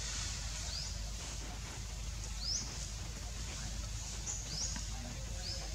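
Short, high-pitched animal chirps, each sweeping upward, about five of them spaced a second or so apart, over a steady hiss of outdoor ambience.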